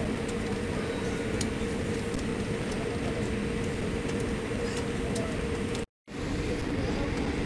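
Steady cabin noise inside a taxiing Boeing 787: engine and air-system rumble with a steady hum. The sound cuts out for a moment about six seconds in.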